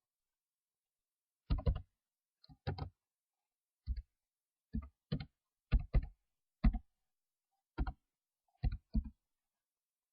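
Computer keyboard keys pressed one at a time while an email address is typed in: about a dozen short, irregular clicks, some in quick pairs.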